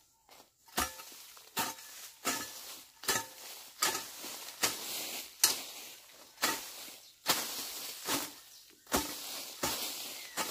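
A hoe chopping into weeds and soil in steady strokes, about one every 0.8 seconds. Each stroke is a sharp strike followed by a brief scraping rustle as the blade drags through the cut growth.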